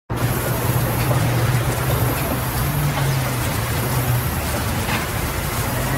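Large sawmill band saw and its machinery running, a steady low hum over a continuous mechanical noise.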